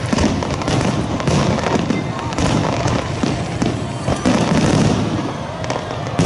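Starmine fireworks barrage: many aerial shells bursting in quick succession, overlapping cracks and booms over a continuous rumble.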